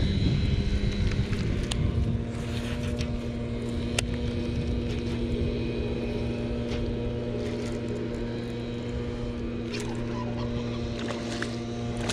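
Steady hum of a motor from grounds-work machinery, with wind buffeting the microphone underneath.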